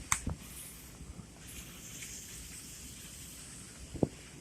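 Steady hiss of a heavy rain and hail storm, with a sharp click just after the start and another about four seconds in.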